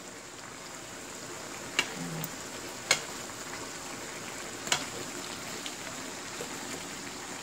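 Spicy braised chicken stew simmering in a frying pan: a steady bubbling sizzle of the reducing gochujang sauce. A metal ladle scoops sauce over the top and knocks sharply against the pan three times, at about two, three and nearly five seconds in.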